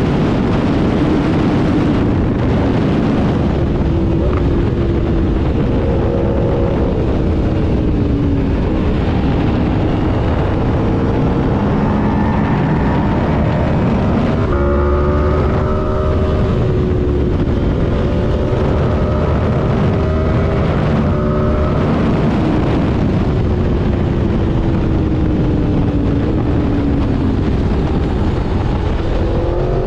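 Aprilia RSV4 V4 engine at speed, heard from the rider's position, its pitch rising and falling with the throttle and dropping at several gear changes. A heavy rush of wind noise sits over it.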